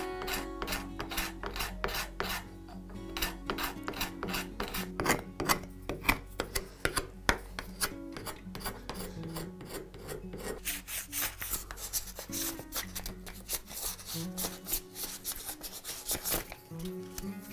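Sandpaper rubbed by hand over the wooden handle of a vintage eggbeater hand drill, in quick repeated rasping strokes.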